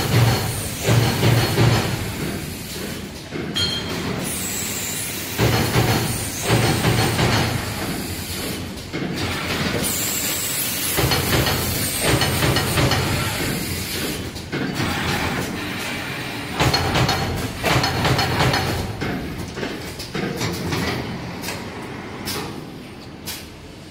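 Automatic card punching machine running: a repeating mechanical clatter that swells and drops every few seconds, with hisses of air in the first half. Near the end it gets quieter, with sharp clicks.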